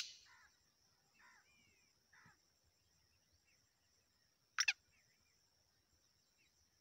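A lull between the calls of a caged black francolin: a few faint bird chirps in the first couple of seconds over a faint steady high tone. About four and a half seconds in comes a short, sharp two-note call from the black francolin.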